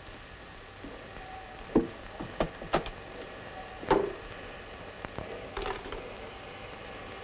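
A few sharp knocks and clunks from a suitcase being opened and its contents handled, the loudest about two and four seconds in, then a brief rustle a little before six seconds, over a steady faint hiss.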